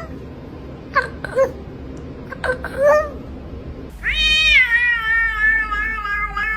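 Domestic cats meowing: four short, chirp-like meows in the first three seconds, then from about four seconds in a long, drawn-out meow that rises, then slowly sinks and wavers.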